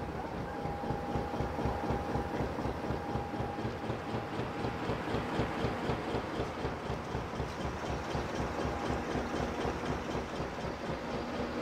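Narrowboat's Petter McLaren B2 traditional diesel engine chugging steadily under way, an even fast beat.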